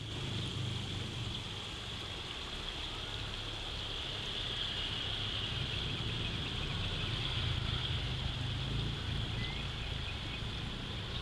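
Steady roadside ambience: a low rumble of passing road traffic that swells and eases slowly, under a constant high-pitched hiss.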